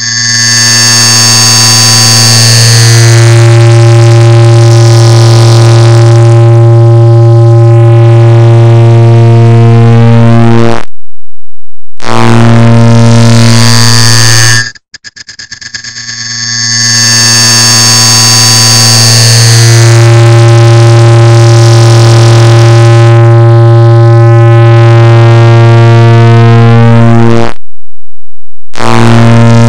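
A clock's ticking, digitally sped up so far that the ticks run together into a loud, steady buzzing drone with a low hum and overtones. Twice it drops out for about a second. About halfway through it restarts as a rattle of ticks that speeds up and blurs back into the drone.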